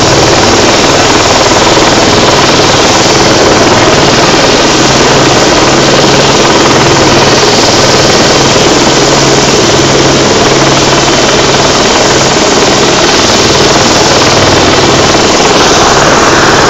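Rescue helicopter hovering low overhead: a loud, steady noise of rotor and turbine engine.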